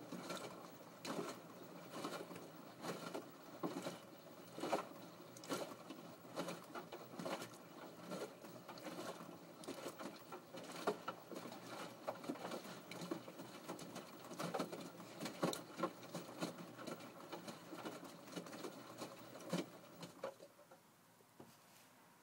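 Washing machine drum turning, the load inside tumbling with irregular knocks and patter, which die down about twenty seconds in.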